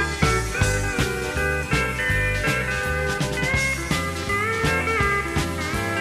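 Country dance band playing an instrumental break: a lead melody with gliding, sliding notes over a stepping bass line and a steady drum beat.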